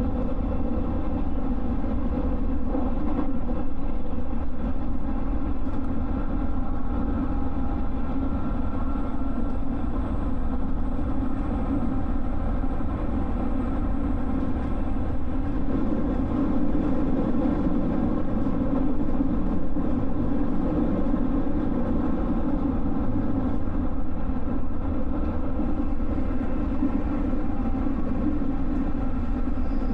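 JR West 221 series electric train running steadily between stations: a continuous mix of wheel-on-rail noise and traction-motor hum, heard from on board.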